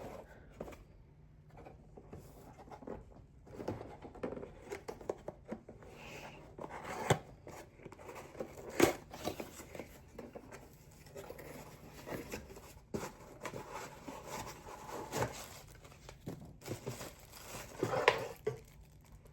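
Packaging being handled and opened by hand: irregular rustling, crinkling and tearing with scattered small clicks and knocks.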